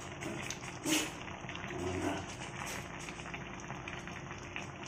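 Fish broth simmering in a wok, a faint steady bubbling, with one short sharp sound about a second in.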